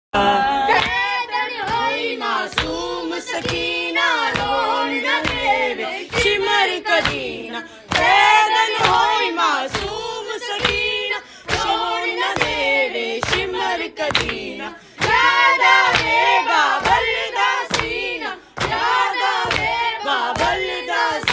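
A noha, a Shia mourning elegy, sung by a boy into a microphone with a group of mourners singing along, over rhythmic chest-beating (matam) strikes about twice a second.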